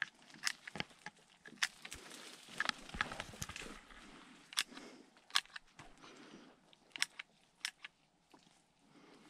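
Pruning secateurs snipping through dry twigs and small branches, sharp single snips every second or so, with brush rustling and crunching around the third second.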